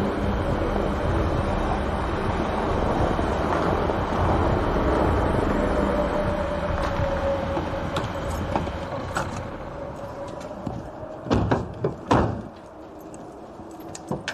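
Steady road noise of a car driving that fades away, followed by two loud thumps about a second apart and a smaller knock near the end.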